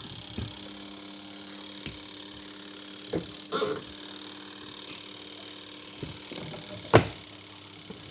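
Several sharp clicks and knocks, the loudest about seven seconds in, with a short rattle a little after three and a half seconds, over a faint steady hum that stops about halfway through.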